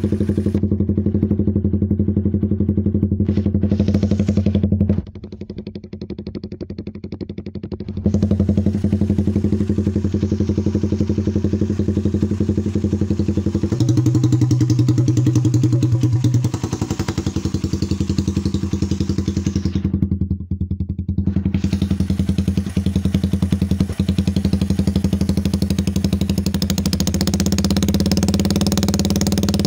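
Motorcycle idling through an open aftermarket exhaust pipe, a steady low engine beat with no revving. The sound turns quieter for a few seconds about five seconds in and dips again briefly around twenty seconds in, and its pitch shifts for a couple of seconds near the middle.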